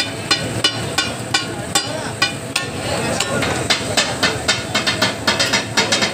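Steel spatulas clacking rhythmically on a large flat iron griddle, the chopping beat of katakat cooking, over the sizzle of butter and meat. The strikes come about three a second, quickening to four or five a second about halfway through.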